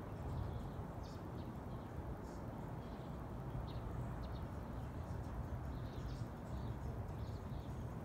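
A low, steady rumble that cannot be placed, with small birds chirping faintly now and then.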